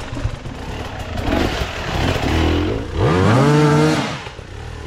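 Dirt bike engine revving hard: the revs climb sharply about three seconds in, hold high for about a second, then drop away.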